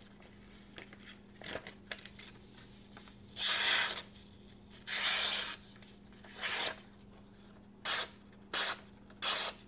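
Folding knife's satin Elmax blade slicing paper in about six short, hissing strokes with pauses between them. Each cut is clean and quick, the sign of a keen factory edge.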